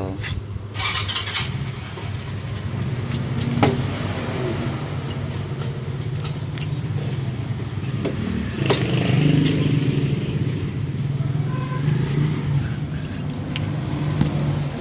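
Small 110 cc motorcycle engine running steadily, with a few sharp metallic clicks and knocks over it.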